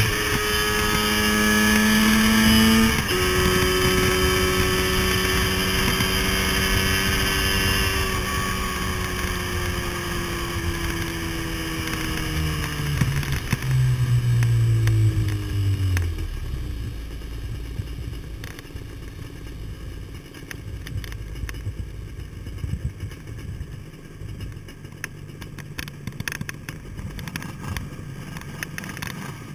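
Yamaha motorcycle engine heard from the rider's seat with wind rush. The revs climb until an upshift about three seconds in, then the bike cruises. From about eight seconds the engine note falls steadily as it slows to a stop, then settles to a quieter idle for the rest.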